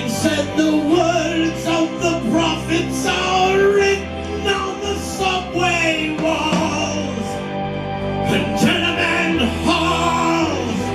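A band playing a cover of a slow folk-rock song: a wavering melodic lead line over steady bass notes, with keyboards and guitar.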